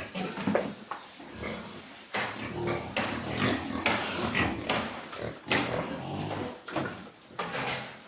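Pigs calling in their pens: a busy run of irregular calls, with a sharp loud one a little before the end.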